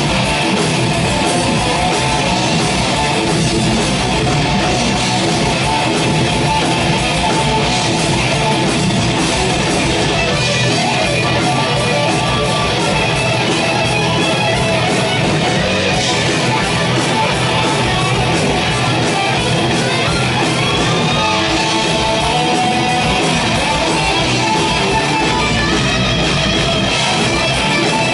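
Thrash metal band playing live with no vocals: distorted electric guitars, bass and fast drumming.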